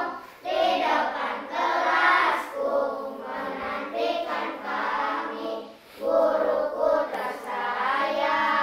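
A choir singing a song in Indonesian, with children's voices among them, in long held notes. The singing dips briefly about half a second in and again near six seconds.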